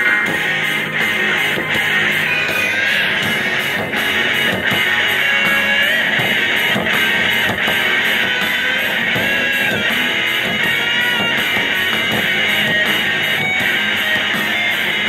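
Rock music with electric guitar played loud through an American Hi-Fi AHF-1041 two-way coaxial speaker, continuous and weighted toward the midrange with little deep bass.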